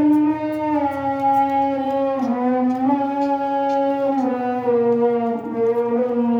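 Background music: a slow melody of long held notes, reed-like in tone, that step up and down in pitch every second or two.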